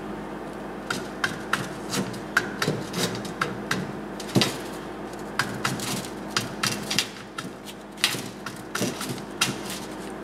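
Tin snips cutting through a sheet of black aluminum expanded grille mesh: a run of sharp snips, two or three a second, with a short pause about seven seconds in.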